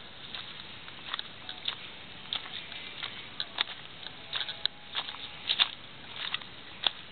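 Footsteps crunching on loose gravel, an uneven walking pace of short crunches.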